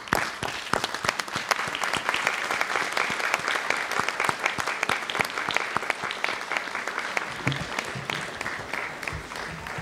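A large crowd applauding, many hands clapping at once. It starts abruptly and tapers off over the last couple of seconds.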